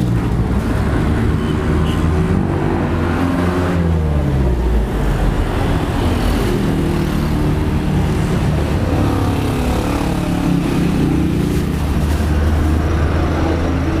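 Small motor scooter engine running close by, its pitch wavering up and down several times.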